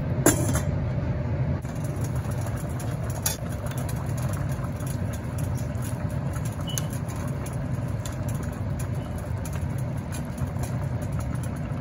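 Pot of broth boiling on the stove: a steady low rumble with scattered small crackles, and a clink of the stainless steel lid against the pot at the start.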